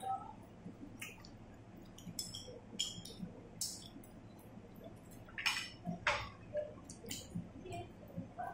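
Table eating sounds: scattered light clinks of chopsticks against china bowls and plates, with short sipping noises from a bowl held to the mouth.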